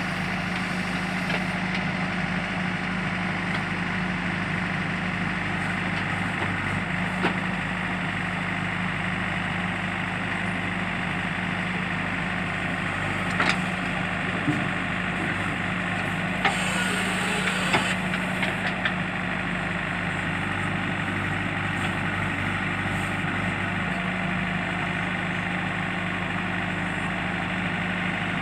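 JCB backhoe loader's diesel engine running steadily at a low, even speed, with a few short knocks and a brief hiss about two-thirds of the way through.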